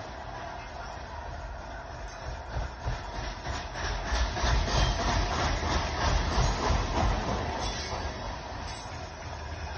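Loaded coal cars of a Union Pacific freight train rolling past, their steel wheels rumbling and clattering on the rails. The sound grows louder partway through.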